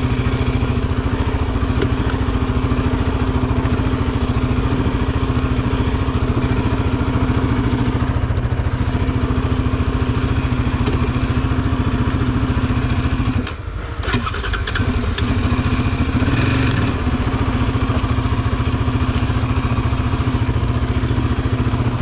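Yamaha Raptor 700 quad's single-cylinder four-stroke engine running at steady revs under load as the quad climbs a steep sandy track. About thirteen and a half seconds in, the engine briefly drops away and then picks up again.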